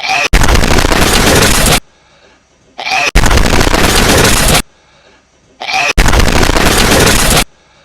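Looped hedgehog sneeze, heavily amplified: three times, about every three seconds, a brief rising squeak leads into a loud, harsh blast of noise lasting about a second and a half, with a short quiet gap between.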